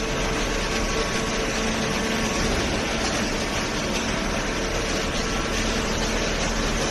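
Hydraulic cardboard baler running: a steady mechanical hum with a constant whine from the machine's motor and pump.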